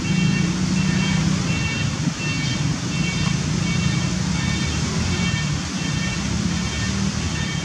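Steady outdoor background noise with a low rumble, and a short high chirping call repeating about twice a second.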